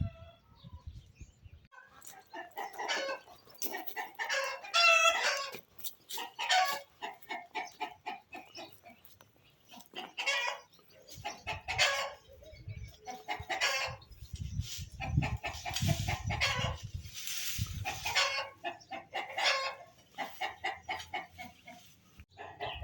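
Chickens clucking and calling in a run of repeated calls, with what sounds like a rooster crowing; the loudest call comes about five seconds in. Low thuds are mixed in through the middle.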